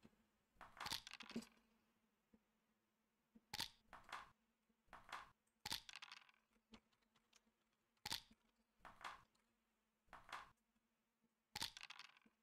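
About a dozen short, sharp clicks, singly and in quick pairs, a second or two apart, as checkers are moved in a computer backgammon game.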